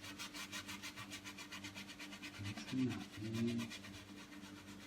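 A brush scrubbing quickly back and forth over wet acrylic paint on a painting, about seven short scratchy strokes a second, blending white cloud paint into the sky colours. The strokes stop just before the end.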